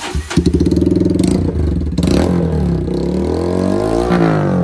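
Bajaj Pulsar N160's single-cylinder engine running and being revved through a dual-side, four-silencer Akrapovic-style exhaust. The pitch drops and climbs again about four seconds in.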